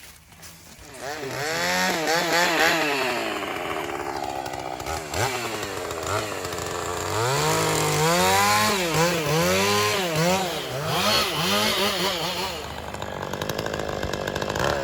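Two-stroke chainsaw running from about a second in, its pitch rising and falling repeatedly as the throttle is worked and the saw bogs and frees up in a cut through a dead tree.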